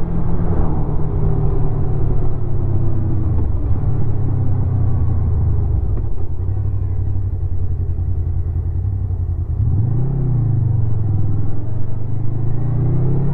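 A 2016 Honda VFR800's V4 engine through its stock exhaust while riding: the engine note falls over the first few seconds as it slows, holds steady, rises and dips briefly about ten seconds in, then climbs again near the end as it accelerates.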